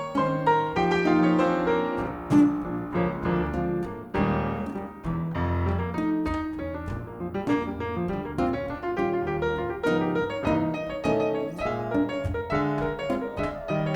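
Acoustic piano playing jazz live: a busy run of notes over low bass notes.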